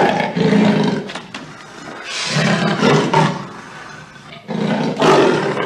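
Tiger roaring in a series of loud calls, each about a second long and about two seconds apart.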